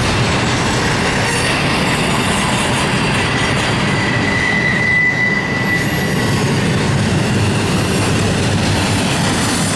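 Freight train of double-stack container cars rolling past on curved track: a steady loud rumble and rattle of wheels on rail. A single high wheel squeal comes in about three seconds in, peaks, and fades out a little after six seconds.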